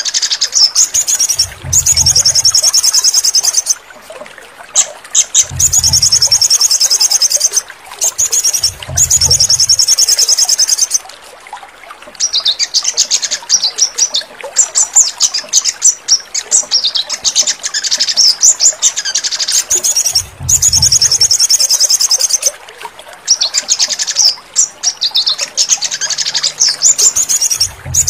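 Crimson sunbird (sogon) song: phrases of very rapid, high trilled notes, each a couple of seconds long, repeated with short breaks. A few low thuds sound underneath.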